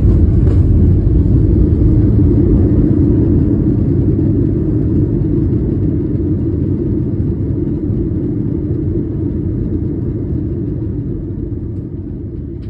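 Airbus A320neo cabin noise during the landing rollout: a loud, steady low rumble of the engines and the wheels on the runway, slowly fading as the airliner decelerates.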